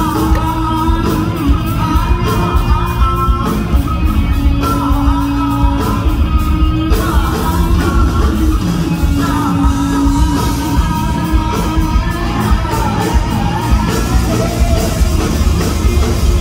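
Live hard rock band playing through a loud PA: electric guitars, bass and a steady drum beat, with a lead singer's vocal line over the top.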